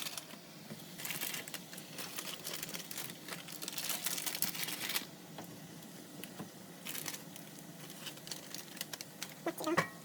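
Close-up crinkling and rustling with many small clicks, strongest in the first half and again briefly later. Near the end there are a few short sounds with swooping pitch.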